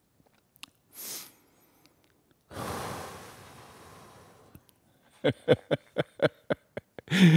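A man's breath sounds close to the microphone: a short sniff, a long breath out, then a quick run of short throat-clearing sounds near the end.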